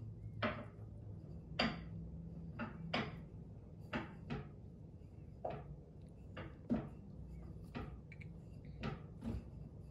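About a dozen light clicks and taps at irregular intervals, over a faint low steady hum.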